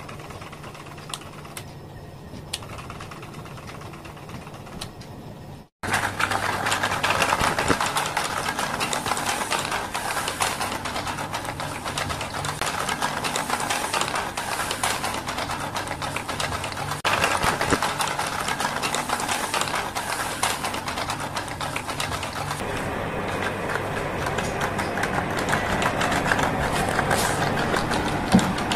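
Small battery-powered motor of a cardboard walking robot running, with rapid clicking and rattling from its moving parts. The sound is quieter for about the first six seconds, then louder after a brief gap.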